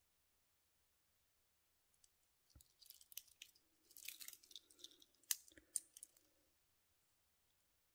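Stainless-steel link bracelet of a Casio G-Shock GM-B2100 rattling as its fold-over clasp is unfastened and the watch is slipped off the wrist. It starts about two and a half seconds in and has two sharp metal clicks about half a second apart toward the end.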